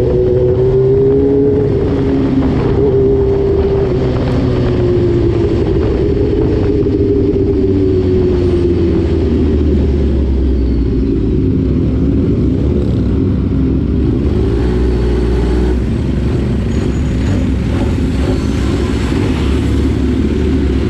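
Motorcycle engine running while riding, its pitch drifting gently up and down with the throttle.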